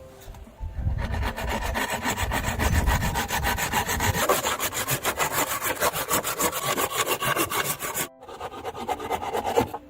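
Saw cutting through wood in quick, even back-and-forth strokes, with a brief pause about eight seconds in before a few more strokes.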